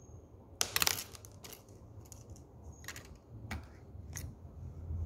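Small clicks and taps of lab equipment being handled on a bench: a quick cluster of clicks a little under a second in, the loudest part, then a few scattered single clicks.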